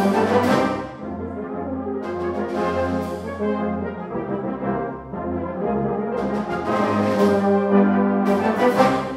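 Brass band music: sustained brass chords over a low bass line, with several loud accented swells.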